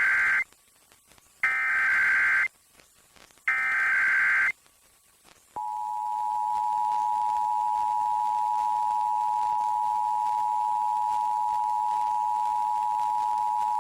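Emergency Alert System SAME header: the tail of one burst of digital data screech, then two more bursts about a second long and a second apart. About five and a half seconds in, the EAS two-tone attention signal starts and holds steady.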